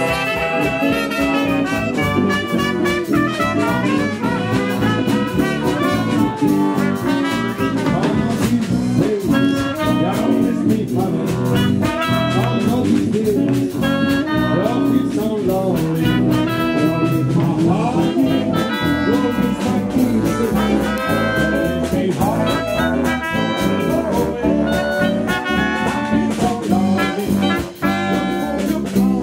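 Live swing jazz band playing, with clarinet, saxophones and brass over drums and guitars, at a steady swing beat.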